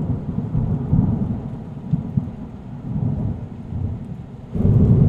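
Deep, rumbling thunder sound effect in a channel intro, swelling and fading, with a louder swell near the end.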